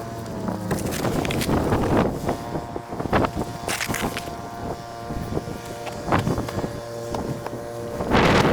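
Snowblower engine running steadily, with repeated noisy surges over it and wind buffeting the microphone; the surges are loudest near the end.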